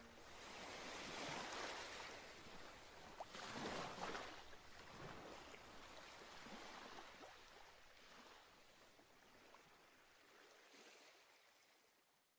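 Faint scratchy swishing of a paintbrush scrubbing acrylic paint onto a canvas. Loudest in the first few seconds, then fading away.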